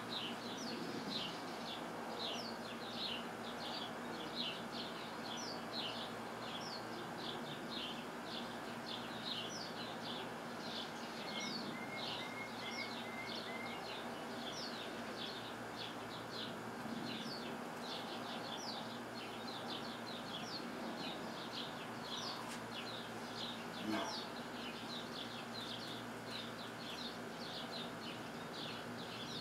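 Small bird chirping steadily, a string of short high chirps about two or three a second, over a steady background hiss. A brief run of lower notes comes about twelve seconds in, and a single light knock comes late on.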